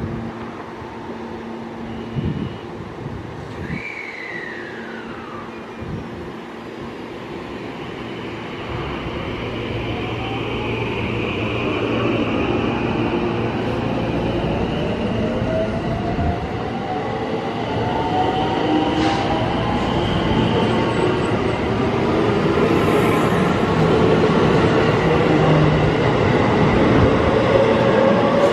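JR West 223-series electric train pulling away from the platform, with a few knocks near the start. Then the traction motors' whine rises slowly in pitch as it gathers speed, and the running noise grows steadily louder.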